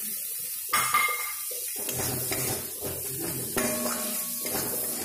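Metal spatula scraping and clanking against a metal kadhai as chopped tomatoes are stirred into a frying masala, in repeated strokes with the loudest clank about a second in. A steady frying hiss runs underneath.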